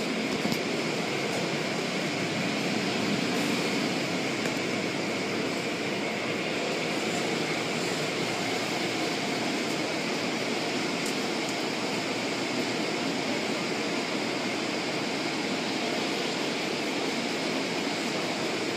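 Automatic car wash heard from inside the car: spinning cloth brushes scrubbing across the windows and water spraying onto the body, a steady wash of noise with a few faint ticks.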